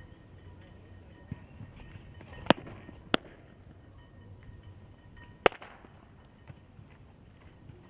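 Three sharp leather pops of a softball smacking into gloves during pitching: two about half a second apart, then a third about two seconds later.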